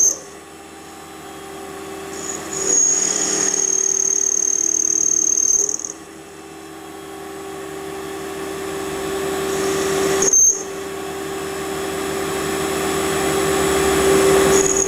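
Small benchtop metal lathe running with a steady motor hum while the tool turns a shoulder on a shaft. A high-pitched cutting whine comes in for about three seconds a few seconds in and again in a short sharp burst about ten seconds in. The cutting noise then builds slowly toward the end.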